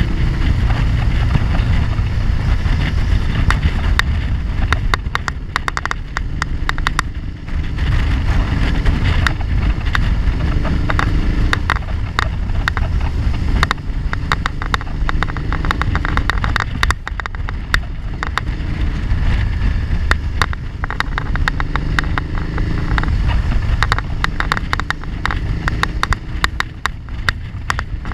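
Motorcycle riding at road speed: the engine note rises and falls with the throttle under heavy wind rumble on the microphone, with frequent small clicks and rattles.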